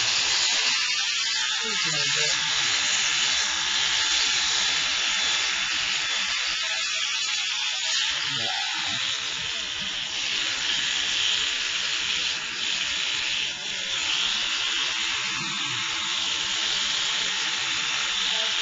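Electric animal clippers buzzing steadily as they shave the fur around a dog's wounds.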